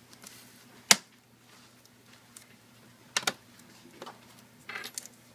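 Sharp plastic clicks and taps as a replacement laptop screen panel is handled and pressed into place in the lid: a loud single click about a second in, a double click around three seconds and a few lighter clicks near the end.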